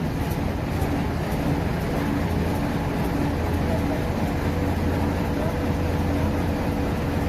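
Heavy diesel machinery engine running steadily, a low even drone with a constant pitch.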